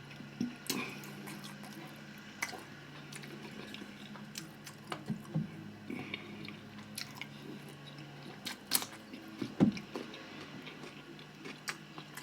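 Close-miked eating sounds: a person chewing and biting food with wet mouth smacks and scattered clicks, a few louder ones about nine seconds in.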